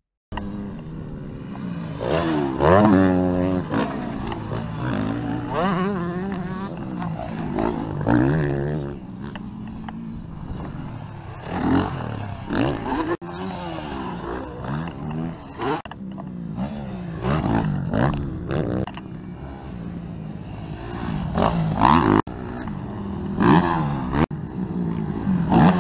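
Motocross dirt bikes riding past one after another, their engines revving up and down through the gears. The pitch climbs and falls again every second or two as the throttle opens and closes.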